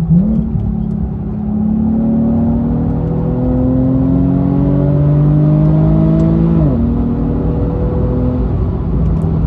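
Nissan 370Z's 3.7-litre V6 heard from inside the cabin while driven hard on track. The engine note dips briefly just after the start, then climbs steadily in pitch under acceleration for about five seconds. About two-thirds through the pitch drops sharply and then holds steady lower down.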